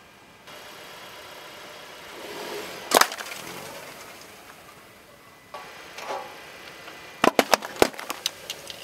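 A car tyre rolling over full plastic Coca-Cola bottles. Rising tyre noise ends in one sharp bang about three seconds in as a bottle bursts, and near the end comes a quick run of sharp cracks as another bottle is flattened.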